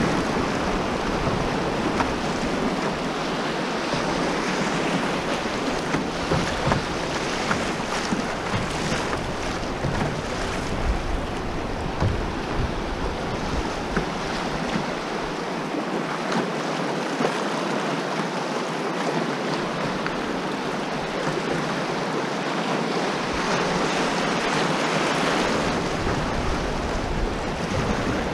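Whitewater rapids rushing and splashing around a canoe's hull, with wind buffeting the microphone now and then.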